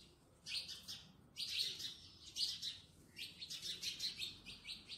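Small birds chirping in quick runs of short, high notes, in about three bouts.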